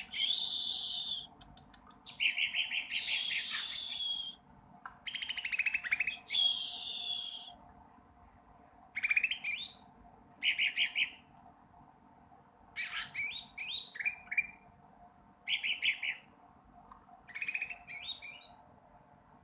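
Juvenile cucak ranting practising its song: three loud, harsh hissing calls with a buzzy tone in the first half, then short twittering phrases of quick rising notes every second or two. A young bird learning to sing.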